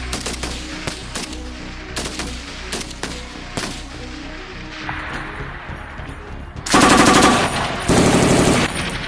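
Gunfire: scattered single sharp shots, then two loud rapid bursts of automatic fire near the end, the second lasting about a second.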